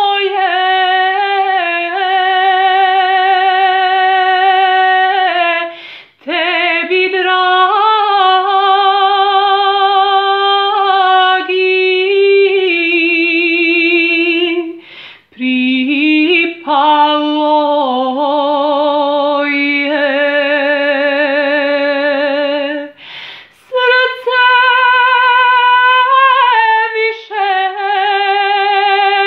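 A woman singing a sevdalinka without accompaniment, in long held notes with a wide vibrato. She breaks off briefly for breath three times.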